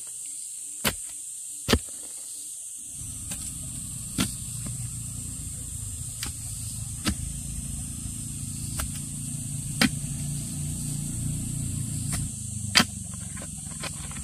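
Sharp knocks, one every second or two, like a tool striking wood or bamboo, over a steady high-pitched drone. A low rumble sets in about three seconds in and stops near the end.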